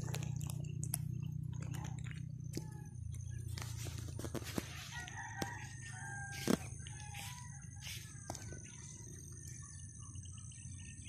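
Outdoor ambience of scattered distant bird calls over a steady high insect drone and a low rumble that slowly fades. Scattered clicks run through it, one louder knock about six and a half seconds in.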